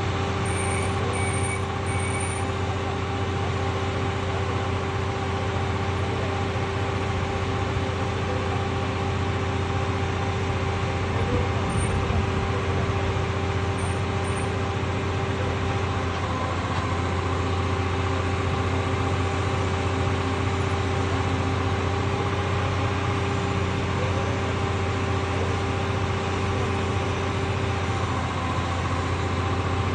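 The engine-driven power unit of a mobile rail welding machine running steadily: a loud low hum with a steady whine above it.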